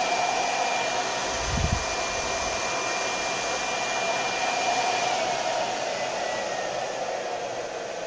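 Onyx Professional infrared hair dryer running: a steady rush of blown air with a thin motor whine. The whine slides down in pitch and the sound eases slightly from about five seconds in as the dryer is switched down to its lowest speed. There is a brief low thump about a second and a half in.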